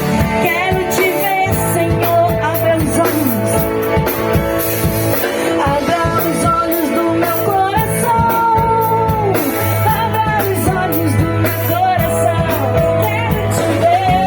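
Live worship band playing a rock-style song: a woman singing the melody over drums, bass guitar, electric guitar and keyboard.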